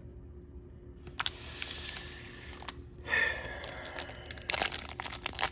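Crinkling and rustling of trading-card pack wrappers being handled, with crackles that come thick and fast over the last second or so.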